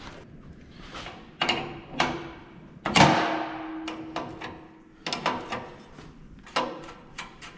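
Metal clanks and knocks from tools and parts being handled during repair work. One loud clank about three seconds in leaves a ringing tone that lasts about two seconds.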